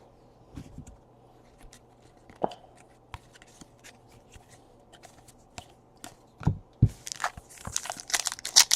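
Trading cards being handled, with light clicks and taps as cards are shuffled and set down, then from about seven seconds in a foil card pack wrapper crinkling and tearing as it is opened.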